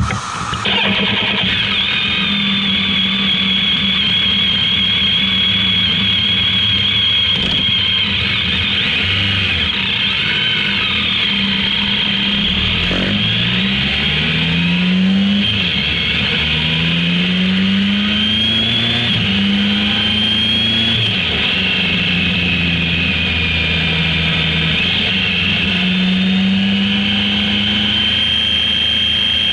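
Motorcycle engine running under way, heard from on board. Its note rises several times and drops back at each gear change, as on accelerating out of bends.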